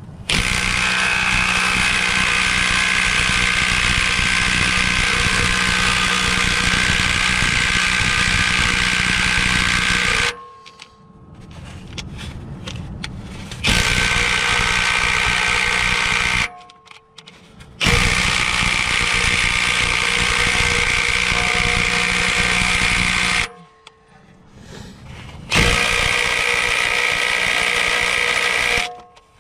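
Ridgid cordless impact wrench hammering on a 19 mm Honda crank pulley bolt through a heavyweight welded socket, in four bursts: a long one of about ten seconds, then three shorter ones with brief pauses between. The bolt does not come loose: the wrench only tickles it and lacks the heavy hammering action to break it free.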